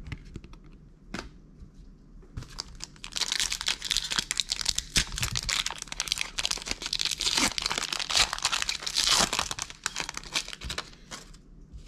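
Foil wrapper of a Marvel Annual trading-card booster pack being torn open and crinkled by hand. A few light clicks of cards being handled come first. From about two and a half seconds in, dense crinkling and tearing run until shortly before the end.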